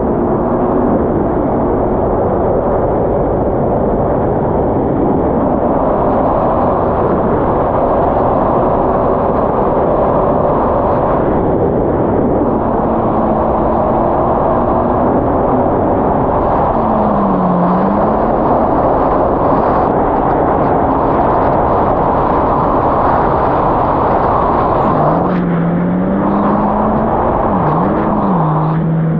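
Supercharged four-stroke engine of a Yamaha GP1800R SVHO jet ski running at speed under a loud rush of wind and water. Its pitch wavers with the throttle, dipping and climbing back once about halfway through and again near the end.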